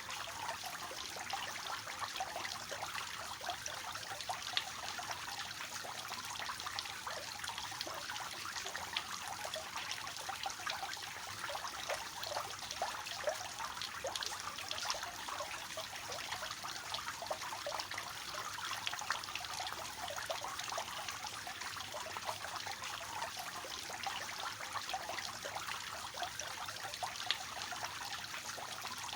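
Water of a three-tiered cascading fountain falling and splashing steadily into its basins, a soft continuous trickle and spatter with no change.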